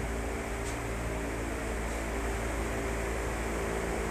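Steady background hum and hiss of a running fan-type motor, with a few steady low tones and no distinct events.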